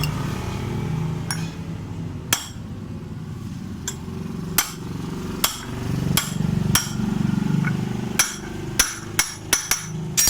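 Hammer strikes tapping the old collar back into a Honda Vario 125's rear CVT driven pulley while its pulley bearing is being replaced: about a dozen sharp knocks at uneven spacing, coming quicker near the end.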